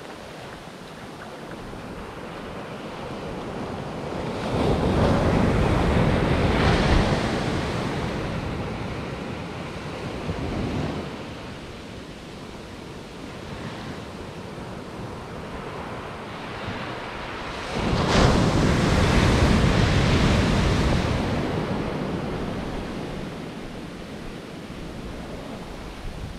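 Ocean surf breaking and washing up a sandy beach, swelling loud twice as larger waves roll in and hiss up the sand, then easing back between sets.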